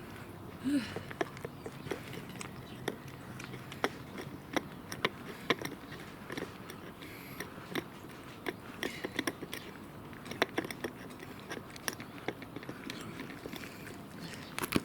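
A cat chewing its food, a run of small sharp crunches and clicks at an irregular pace.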